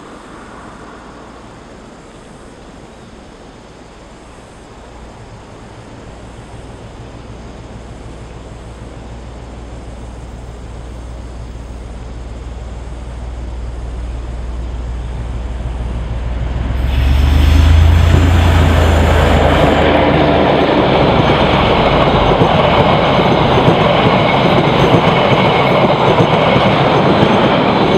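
Diesel-hauled passenger train approaching and passing close by. The locomotive's diesel engine rumble builds steadily, peaks as the locomotive goes past, then the carriages' wheels run loudly over the rails until the sound cuts off suddenly.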